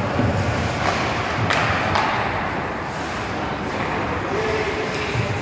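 Ice hockey play in an indoor rink: skates on the ice and sharp clacks of sticks and puck, two of them standing out about a second and a half and two seconds in, over steady echoing arena noise.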